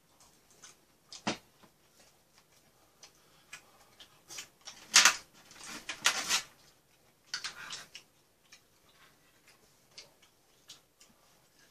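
A person eating: scattered light clicks of chopsticks and a spoon against bowls and a metal pan, with mouth sounds, and two loud breathy puffs from the mouth about five and six seconds in, as if blowing out over hot, spicy food.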